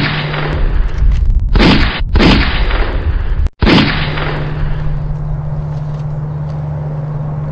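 Four revolver shots, each with a long echoing tail: one at the very start, two close together about a second and a half in, and one near four seconds in. The last rings away over a low steady hum.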